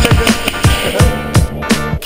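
Hip hop backing track between rapped lines: an instrumental passage with a steady drum beat, about three hits a second, under sliding melodic notes.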